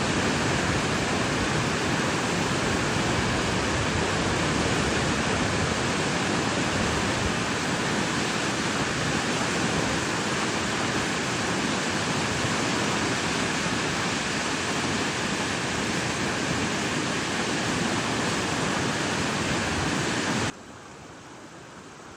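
Mountain river rushing, a loud, steady sound of running water; near the end it cuts suddenly to a much quieter level.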